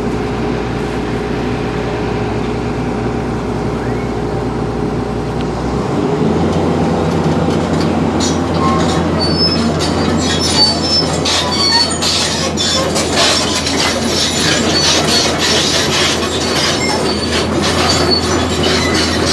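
JCB excavator moving over a concrete road: its diesel engine runs steadily, shifting in pitch about six seconds in. From about eight seconds on, steel tracks clank and squeal sharply and repeatedly against the concrete.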